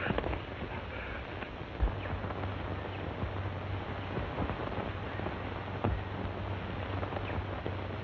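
Old optical film soundtrack running without dialogue: a steady hiss with a low hum, and scattered crackles and clicks, one sharper pop about two seconds in.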